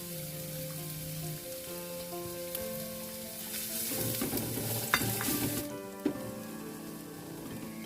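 Food sizzling in a hot pan as it is stir-fried, with two sharp clicks about five and six seconds in; the sizzle drops away sharply just before the second click. Soft background music plays underneath.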